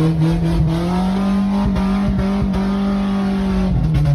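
1997 Nissan's engine revved high and held there while driving off-road, heard from inside the cab. A few knocks come about two seconds in, and the revs start to drop near the end.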